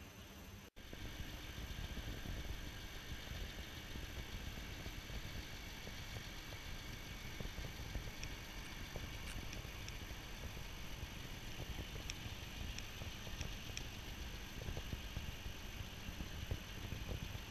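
Mercedes-Benz Unimog 404 fire tender's petrol engine running at low speed as the truck drives slowly up to and past the listener, a steady low rumble.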